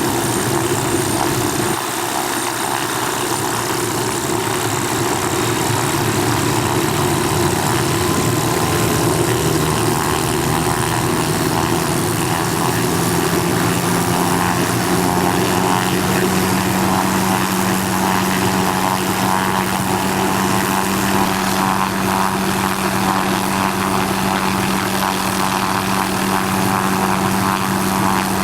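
Propeller airplane engine running with a steady drone; a low hum in it grows stronger about a third of the way in.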